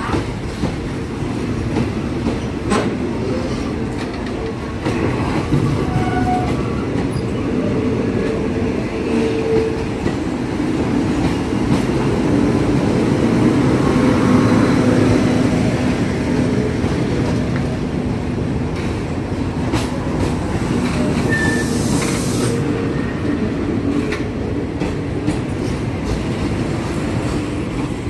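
Passenger coaches of a long train rolling past as it pulls out of the station, wheels clacking over rail joints with some wheel squeal. A brief hiss comes about three-quarters of the way through.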